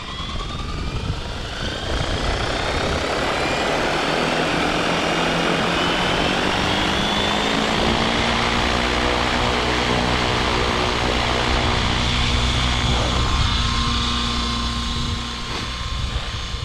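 Align T-Rex 650X electric RC helicopter spooling up: the motor whine and rotor sound rise in pitch over the first couple of seconds, then the motor and main rotor blades run steadily at flying speed.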